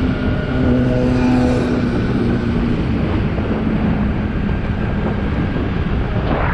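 Motorcycle engine running steadily while riding at road speed, its tone holding fairly even, with wind rushing over the microphone.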